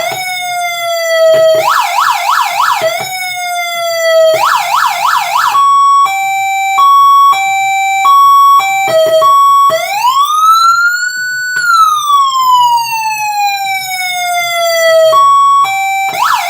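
Code 3 model 3942 electronic siren sounding through its speaker, on the alternate tone set picked by its rear switch. First comes a rapid yelp broken twice by a falling glide, then a hi-lo two-note alternation, then one slow wail that rises and falls away, then the yelp again near the end.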